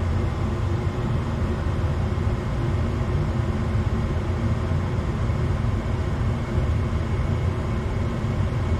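Gas furnace running with its burners lit, a steady low rumble. The circulating blower is not yet running while the control board waits to signal it.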